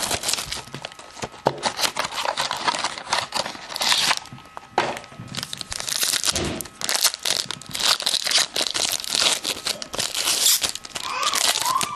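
Foil wrapper of a Bowman Sterling football card pack being torn open and crinkled by hand, with irregular crackling and crinkling throughout.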